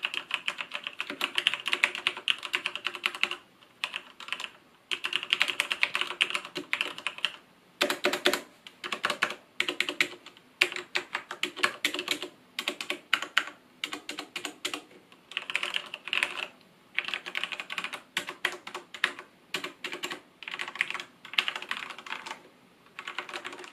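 Corsair K70 RGB MK.2 Rapidfire mechanical keyboard with Cherry MX Speed silver linear switches being typed on: rapid runs of keystrokes in bursts of a second or two, with short pauses between them.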